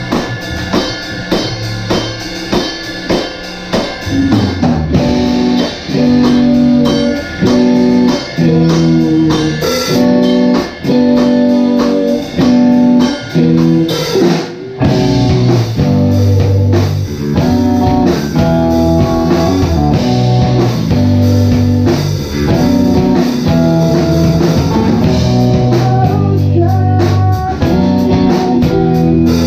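Live band playing guitars and drum kit. Drum hits keep time at first, the full band comes in louder about four seconds in, and there is a short break about halfway before the playing resumes.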